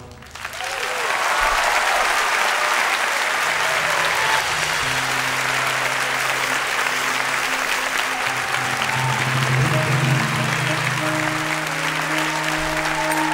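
Theatre audience applauding, swelling in within the first second and then holding steady, while the pit band plays held notes underneath.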